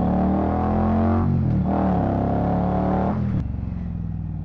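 Indian Scout 1200's V-twin engine pulling under throttle through Vance & Hines slip-on exhausts, heard from the rider's seat. The note breaks briefly about a second in, picks up again, then drops away as the throttle is rolled off about three seconds in.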